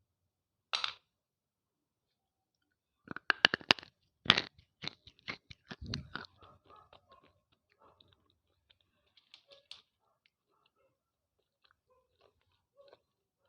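Slate pencil being bitten and chewed: a sharp snap about a second in, a burst of loud crunches around three to four seconds in, then chewing crunches that grow fainter and sparser.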